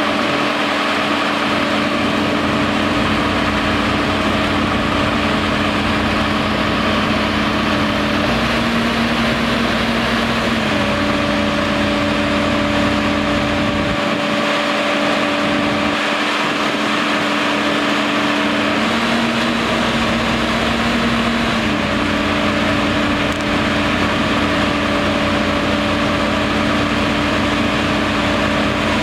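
Fire brigade turntable ladder truck's engine running steadily to drive the ladder's hydraulics. Its pitch drops for a few seconds twice, about 8 and 19 seconds in.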